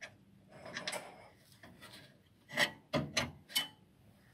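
A cable connector being worked into its socket on a projector's sheet-metal chassis: a short scraping rub about a second in, then four quick sharp clicks and knocks.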